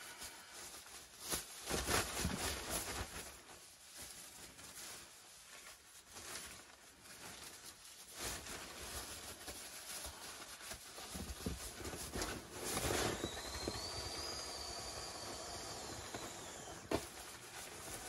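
Nylon pump sack rustling and crinkling as it is filled and squeezed to inflate a sleeping mat. In the second half air rushes through the valve with a faint high whistle that rises and then drops away shortly before the end.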